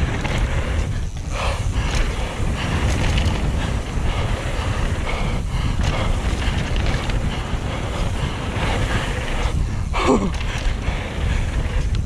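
Wind buffeting an action camera's microphone during a fast mountain-bike descent on a wet trail, a steady rough rumble with tyre and trail noise underneath. A short falling tone sounds about ten seconds in.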